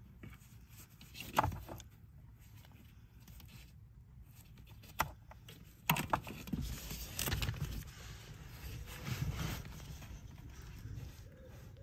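Gloved hands twisting and pulling a plastic brake-pedal sensor out of its mount on the pedal box: a few sharp clicks and the rustle and scrape of gloves against plastic and wiring.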